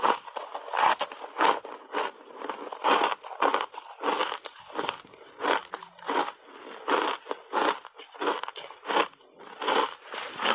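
Ice chunks coated in matcha and milk powder being bitten and chewed, a steady run of crisp crunches about two a second.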